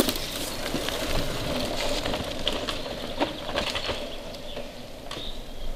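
Mountain bike rolling past on a leaf-strewn dirt trail: tyres crackling over dry leaves and twigs, with scattered clicks and knocks. A short high chirp sounds near the end.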